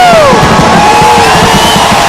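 Large crowd cheering and whooping at a fireworks display, with long rising-and-falling shouts over loud music.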